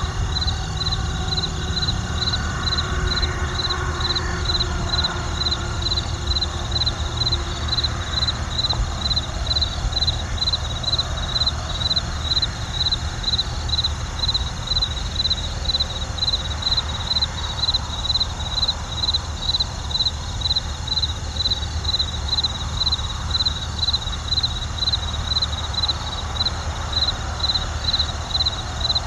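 Cricket chirping in a steady, regular rhythm, about two high-pitched chirps a second, over a low steady rumble.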